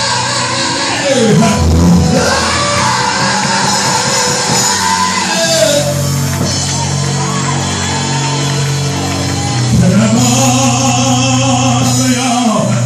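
Live gospel music: a singer's voice, partly shouted, over loud instrumental accompaniment with held chords.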